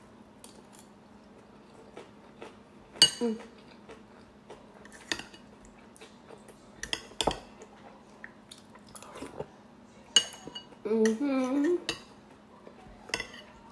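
A metal spoon clinking and scraping against a bowl now and then during a meal, each contact a short click. About eleven seconds in comes a short hummed "mmm" of enjoyment.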